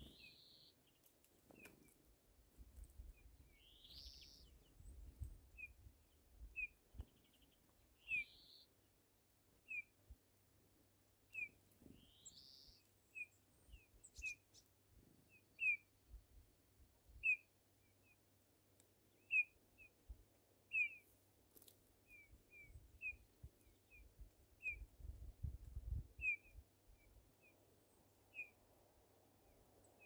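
Small songbirds calling. A European greenfinch gives a rising wheezy 'dzweee' about every four seconds in the first half, over a short high call note repeated roughly once a second throughout.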